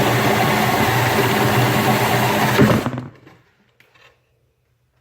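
Cordless drill running under load as it bores into a wooden board, stopping about three seconds in.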